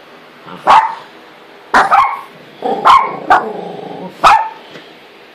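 Small dog barking: about half a dozen short, sharp barks at uneven intervals.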